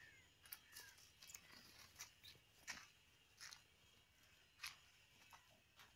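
Near silence, broken by faint, irregular sharp crackles and clicks, roughly one every half second to a second.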